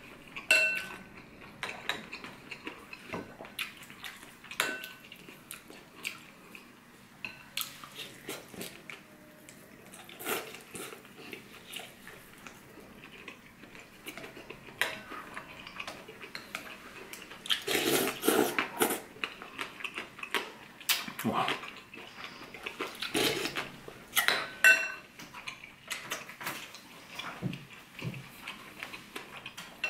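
Chopsticks and a ceramic soup spoon tapping and clinking against a ceramic ramen bowl, scattered irregular knocks, some leaving a short ringing tone, with eating sounds between them. The clinks come thicker after about halfway.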